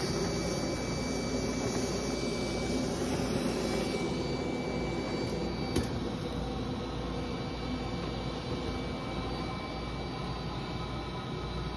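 Steady rushing roar of lit gas glass-bending burners, with a single sharp click about six seconds in.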